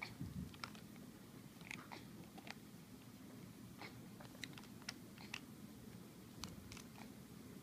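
Light plastic clicks and taps, irregular and spread through, as a baby handles a small multi-piece plastic toy, with a soft low thud right at the start, over a faint room hum.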